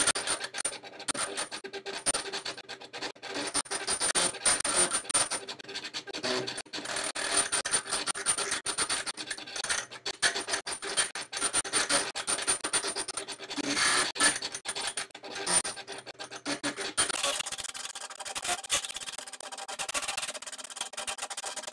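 Stepper motors turning the knobs of an Etch-A-Sketch through gears as it draws, a fast, irregular clicking and scratching. The sound changes in character about seventeen seconds in.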